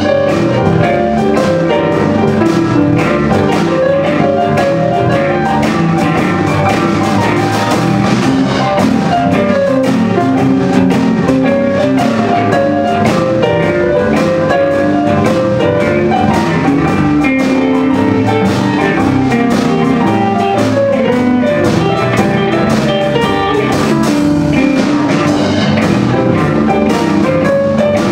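Electric blues band playing an instrumental passage live: two electric guitars, keyboard, bass and drum kit, over a steady drum beat.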